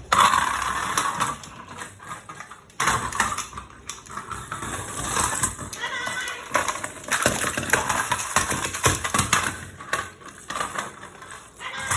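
Pet parrots squawking and screeching in loud, harsh calls, one after another, with short gaps between them.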